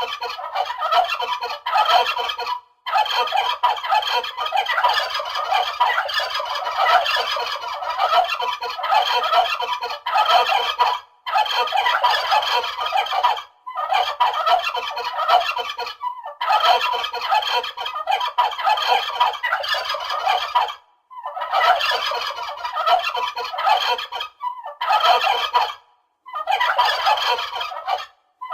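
A flock of turkeys gobbling together in a dense, overlapping chorus, broken by brief silences every few seconds.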